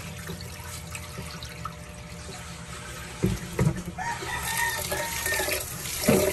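Tap water running steadily, with two knocks a little past three seconds in. About four seconds in, a rooster crows once, held for nearly two seconds.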